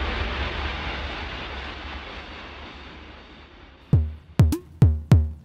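Electronic intro music: the rumbling tail of a heavy impact hit fades away over about four seconds, then a beat kicks in near the end with four quick, deep drum-machine kicks, each dropping sharply in pitch.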